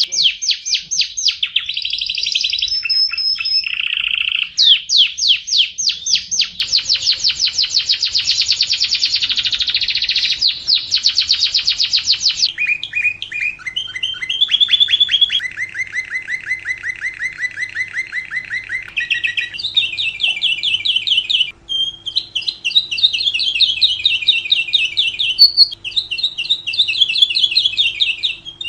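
Lovebird singing a long, fast trill of rapidly repeated high chirps. The trill changes pitch and pattern several times, with short breaks late on.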